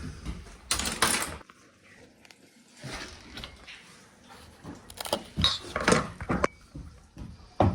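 Clinks and clatter of hard objects and tools being handled, in a few short bursts with a quiet gap about one and a half seconds in.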